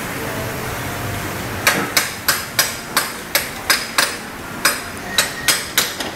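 A hammer striking a metal part in a steady run of blows, about three a second, each with a short metallic ring; the blows begin after a second and a half of steady hiss.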